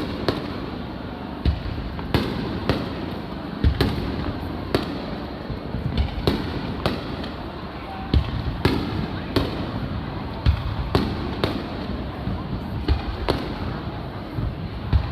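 Aerial firework shells bursting one after another at irregular spacing, about twenty booms in all, over a steady background of crowd noise.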